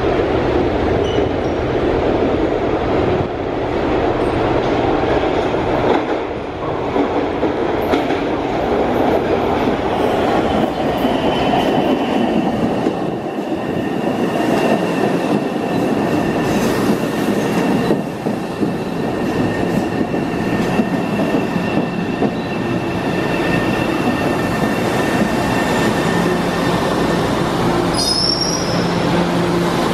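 An MBTA Orange Line 01400-series subway train enters an underground station and runs along the platform, rumbling and clattering on the rails. A steady high-pitched whine sounds from about ten seconds in until the train has nearly stopped. A low hum and a brief high chirp come near the end.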